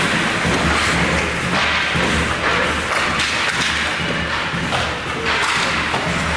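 Ice hockey play close to the boards: repeated thuds of sticks, puck and players against the boards, over a steady hiss of skates scraping the ice.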